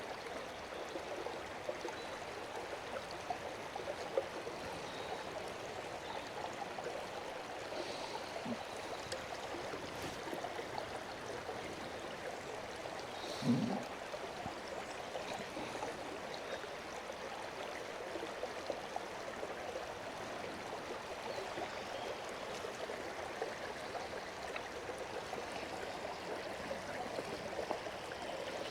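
River water running steadily over rocks, a continuous rushing. There is one short low thump about halfway through.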